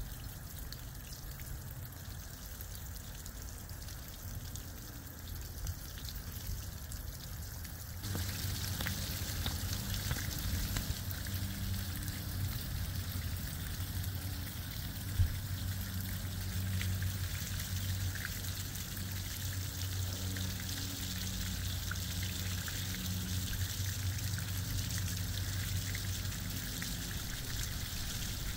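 Water pouring and trickling down a rain chain of patina-finish flower-shaped cups, spilling from cup to cup in a steady splashing stream. About 8 s in it becomes louder and brighter.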